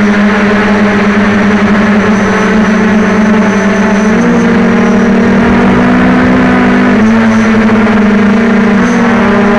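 Quadcopter's electric motors and propellers buzzing in flight, heard close up from the camera on board. The pitch steps up about four seconds in as the throttle changes, drops back about seven seconds in, and rises slightly near the end.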